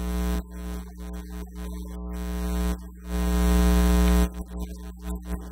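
Low sustained electronic keyboard notes, held one after another with short breaks, over a steady mains hum. The loudest note starts about three seconds in, swells, and stops sharply a second later.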